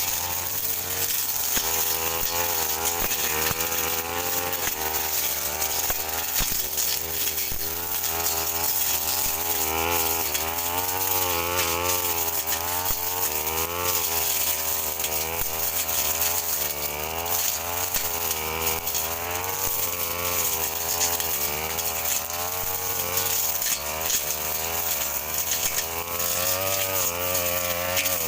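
Two-stroke brush cutter running at high speed as it cuts bush grass and cogon grass, its engine pitch wavering up and down continuously.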